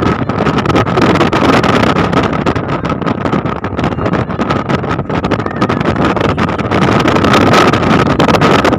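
Wind rushing over the microphone and road noise from a car driving along, a steady loud rush with crackling buffets and a faint steady whine.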